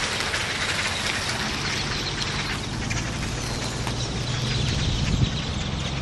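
A huge flock of birds roosting in a tree, many calling at once in a dense, continuous chatter, over a low steady hum.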